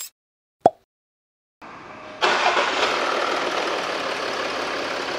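A single sharp click, then the Jaguar XJ (X351) 3.0-litre V6 diesel engine starts about two seconds in and settles into a steady idle.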